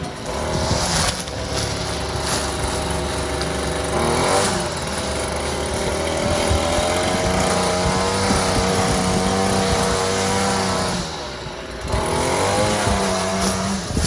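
Gas-powered string trimmer (weed eater) engine running at speed. Its pitch dips and climbs back about four seconds in, and again with a brief drop in level near the end.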